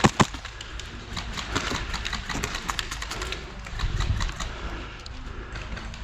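Airsoft gunfire around the field: a dense run of short, irregular ticks, with one sharp click just after the start.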